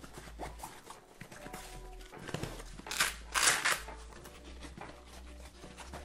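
Hands handling a fabric backpack's shoulder straps and back panel. About three seconds in comes a loud, rasping tear of its Velcro hook-and-loop strip, in two quick pulls.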